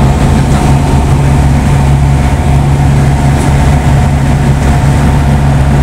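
The engine and propeller of a Tecnam P2002 JF light aircraft, a Rotax 912, running steadily in cruise flight. It is heard from inside the cockpit as a loud, even drone.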